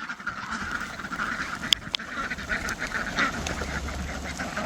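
A flock of ducks quacking and chattering, many short calls overlapping, with a couple of sharp clicks about halfway through.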